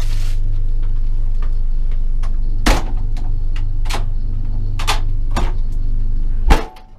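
Steady low electrical hum in a train carriage's toilet cubicle, broken by a string of sharp clicks and knocks from the door and fittings being handled. The loudest knock comes near the end, and the hum dips briefly just after it.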